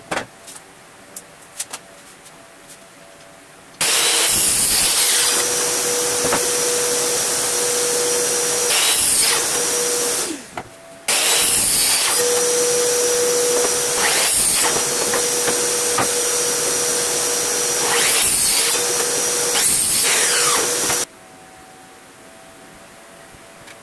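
DeWalt sliding miter saw starting about four seconds in and running with a steady whine while its blade crosscuts pine boards in several passes. It cuts out briefly near the middle, starts again, and stops abruptly about three seconds before the end. Light knocks of boards being handled come before and after.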